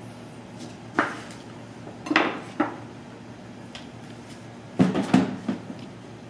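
Clinks and knocks of bar tools being handled on a bar counter: a sharp knock about a second in, two or three more around two seconds, and a cluster of clattering knocks near five seconds.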